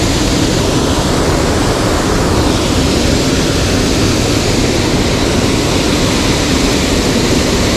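Mountain creek water running steadily, a loud even rush of water spilling over a small waterfall into a pool.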